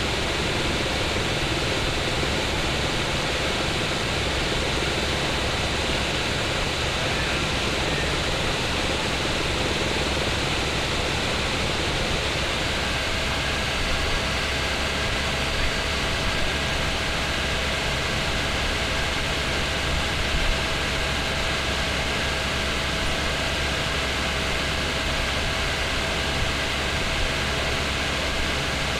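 Helicopter in cruising flight heard from inside the cabin: a steady drone of turbine and rotor with rushing airflow noise. A faint steady whine shows within it from about halfway through.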